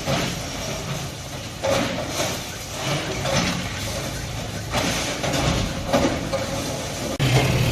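A bulldozer's engine running, with several short, loud bursts of crashing or scraping noise as it demolishes.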